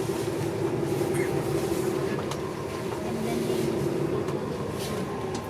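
Inside a city transit bus on the move: a steady drone of the bus's motor and drivetrain, with a few faint rattles.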